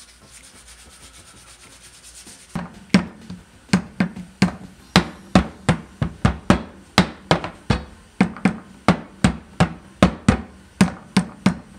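Faint rubbing of sanding on wood, then from about two and a half seconds in a hammer striking wood in a quick, uneven run of blows, two or three a second, each with a short ring.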